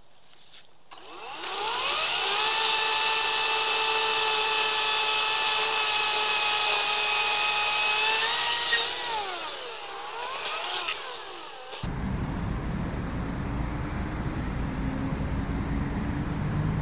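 EGO 56V battery chainsaw's electric motor whining up to speed about a second in and running at a steady high pitch, then dropping in pitch and wavering as the chain bites into a log. About twelve seconds in the sound cuts abruptly to a low, steady rumble of road traffic.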